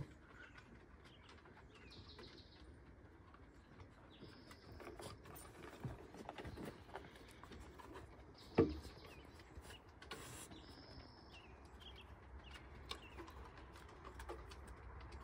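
Small birds chirping now and then over quiet outdoor background, with faint light ticks such as dogs' claws on a wooden deck. One short, loud sound stands out about eight and a half seconds in.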